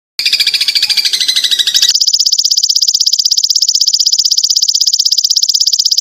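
Singing insect's rapid, very even pulsed trill, high-pitched, starting abruptly after a brief scratchier pulsed call. It is an edited recording with hard cuts.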